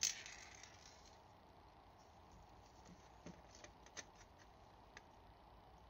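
A sharp metallic clink with a brief ringing tail as a small metal part meets a stainless steel tray, then a few faint light ticks of small lighter parts being handled.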